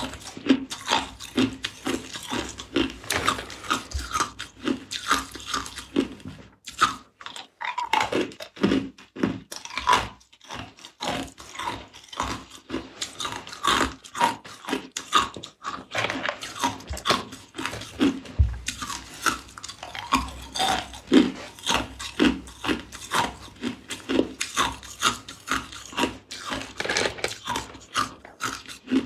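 A person chewing ice cubes close to the microphone: a dense run of sharp crunches and crackles, with short pauses about seven and ten seconds in.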